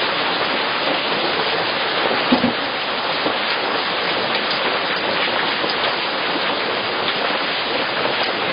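Steady, even hiss like falling rain, picked up by a CCTV camera's microphone, with a soft thump about two and a half seconds in.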